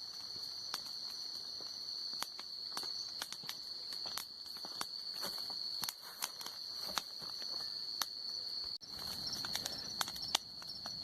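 A night chorus of crickets trilling steadily. Over it come irregular sharp crackles and pops, most likely from the burning wood of a bonfire.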